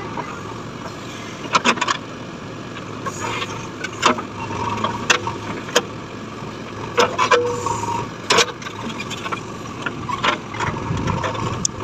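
JCB 3DX backhoe loader's diesel engine running steadily while its backhoe bucket digs into soil and stones, with repeated sharp knocks and scrapes of the bucket and arm scattered throughout.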